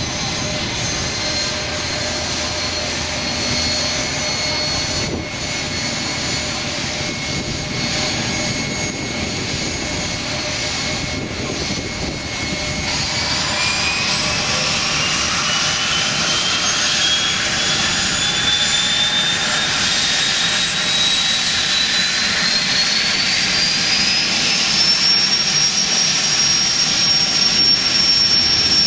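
Twin Otter's Pratt & Whitney Canada PT6A turboprop engines during start-up: a steady turbine whine, then from about halfway a whine rising steadily in pitch for about twelve seconds as an engine spools up, levelling off near the end as it settles.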